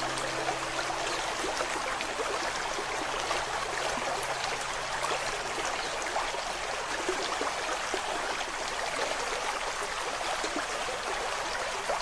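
Running water of a stream, a steady babbling rush laid on as a nature-sound track. A low held music note dies away about halfway through.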